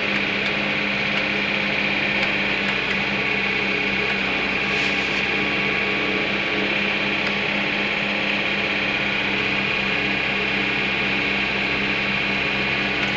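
John Deere tractor engine running steadily under load, driving a hydraulic-drive two-stage loader-mounted snow blower, with a steady low hum and a constant high whine, heard from inside the tractor cab.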